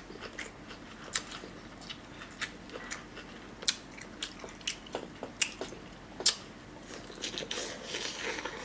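Close-miked chewing of sauce-covered seafood-boil food, with many irregular wet lip smacks and mouth clicks, thickening into a longer wet smacking near the end.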